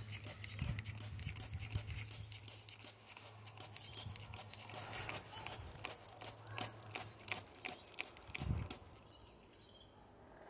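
Water from a mist spray pattering and dripping in quick, irregular ticks over a low steady hum that stops about seven and a half seconds in. A single low thump comes near the end, and then the ticking dies away.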